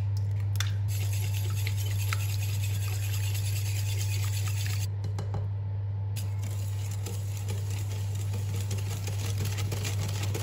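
Wire whisk stirring and scraping batter in a glass mixing bowl, with a few light clicks, over a steady low hum.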